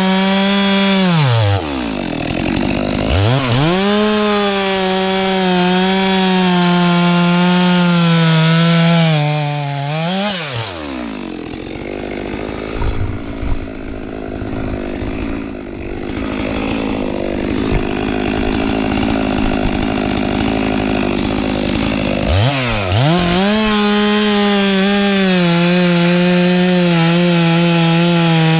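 Two-stroke chainsaw running at high revs, its pitch dipping and recovering briefly near the start. About ten seconds in it falls back to idle for roughly twelve seconds, then revs back up and holds at full throttle.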